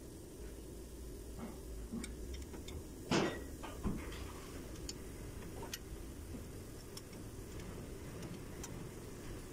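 Scattered metallic clicks from a ratchet wrench tightening a caliper bracket bolt on a pickup's front brake knuckle, with one louder clank about three seconds in.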